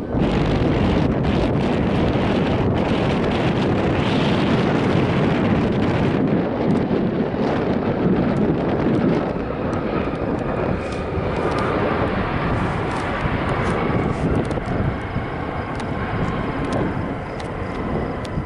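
Jet aircraft engines running loud and steady, with a faint whine coming through in the second half.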